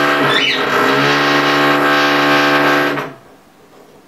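A loud, steady machine drone with a strong low hum, so loud it stopped filming. It breaks briefly with a short pitch sweep about half a second in and cuts off about three seconds in.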